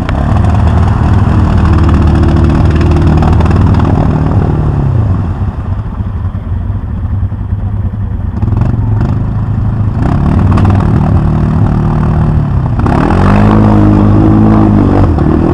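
ATV engine revving under load as it pushes through a mud hole, its pitch dropping off about five seconds in, then climbing again, with a hard rev near the end.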